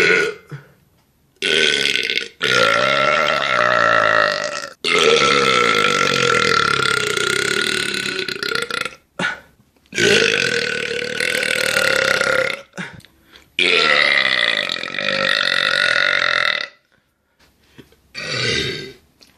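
A run of about six long belches from men, one after another with short pauses between. Most are drawn out over two to four seconds on a fairly steady pitch, and a short one comes near the end.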